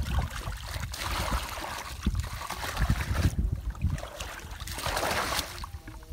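Shallow muddy water sloshing and splashing in uneven surges, as if stirred by hands or feet, over a low rumble.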